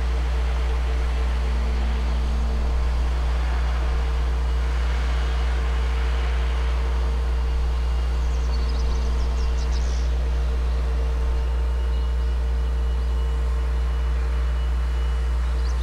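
A steady, unbroken low mechanical drone with several even humming tones above it, like machinery running without pause. Brief clusters of faint high chirps come about eight seconds in and again near the end.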